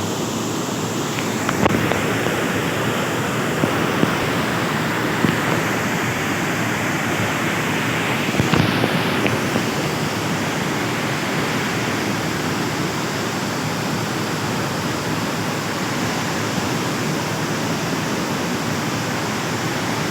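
Steady rushing of a river in flood, swollen and running high after a night of rain, with a few faint knocks.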